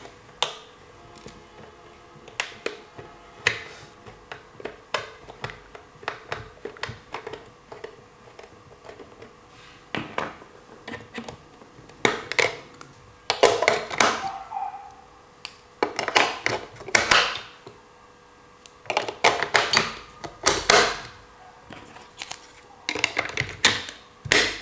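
Clicks, taps and plastic rattles of a toy ATM being handled and its buttons pressed, in irregular clusters with short pauses between.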